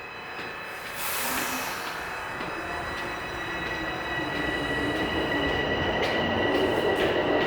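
Toronto subway train pulling out of the station after its doors close. Its motor whine rises in pitch and gets louder as it speeds up, with a brief hiss about a second in.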